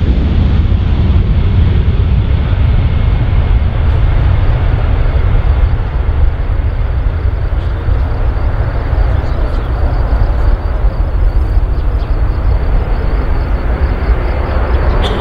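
Jet engines of an Airbus A320-family airliner at takeoff power, a loud steady rushing noise with a heavy low rumble, during the takeoff roll and climb-out.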